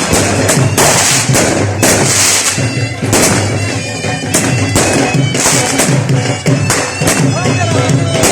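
Wedding band of bagpipes and drums playing: the pipes' steady drone and melody over a regular drumbeat, with repeated sharp bangs through it.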